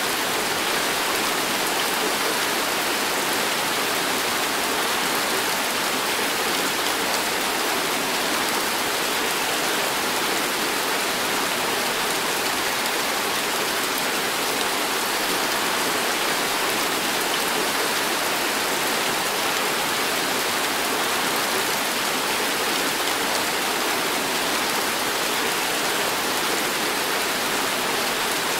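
Heavy tropical downpour, a steady, even hiss of rain pouring onto paving, foliage and tent roofs, unchanging throughout.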